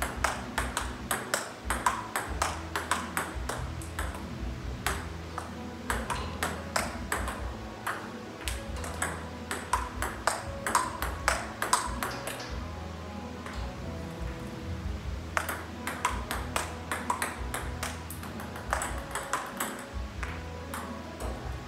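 Table tennis rally: the plastic ball clicks back and forth off the paddles and the table a few times a second, in runs broken by short pauses between rallies.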